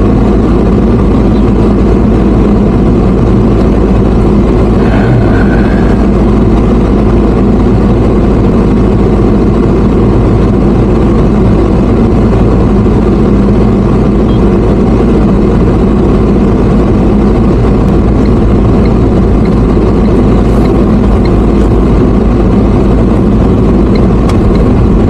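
A motor vehicle's engine and road noise, running steadily with a deep rumble and no change in speed.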